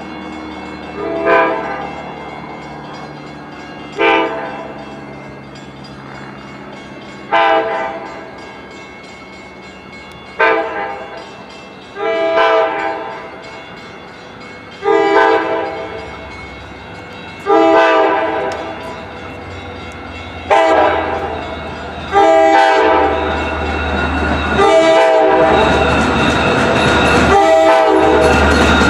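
Long Island Rail Road train horn sounding a series of short blasts, one every two to three seconds, each louder than the last as the train approaches. Around two-thirds of the way in, the loud rumble and rattle of the train arriving alongside joins in and keeps growing.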